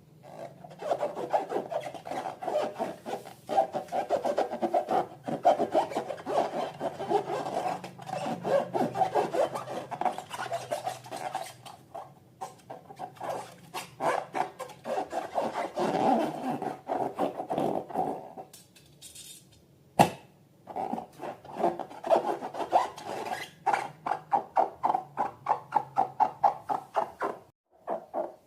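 Rubber balloons being rubbed and squeezed in rapid, squeaky strokes. There is a short lull and one sharp click about two-thirds of the way through, then a quicker rhythm of strokes near the end.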